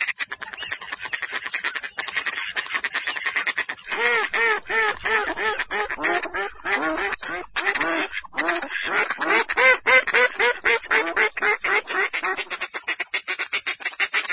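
Mallard ducks quacking in a rapid, continuous run of short calls, several a second, with brief pauses about 4 and 8 seconds in.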